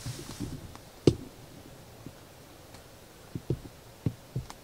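A sharp knock about a second in, then a few softer thumps and clicks near the end: handling noise as the camera is moved.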